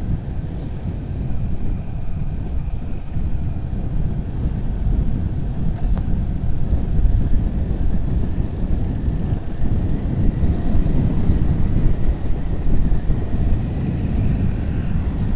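A motorcycle running along at road speed, its engine and road noise mixed with steady wind rumble on the microphone.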